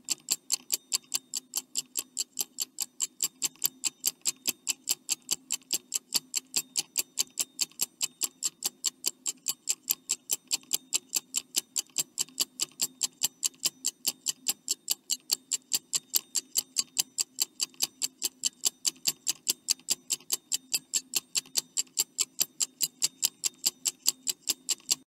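Countdown-timer sound effect of a clock ticking fast and evenly, about three ticks a second.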